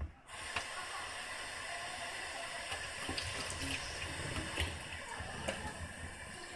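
Water running steadily from a tap, with a few faint clicks.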